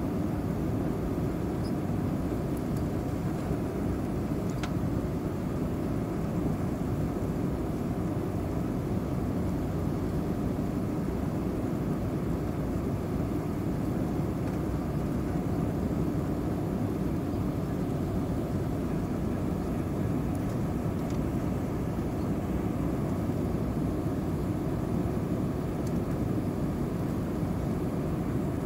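Steady cabin noise inside an Airbus A320-232 on approach, heard from a window seat over the wing: the low, even rumble of its IAE V2500 turbofans mixed with the rush of air over the fuselage.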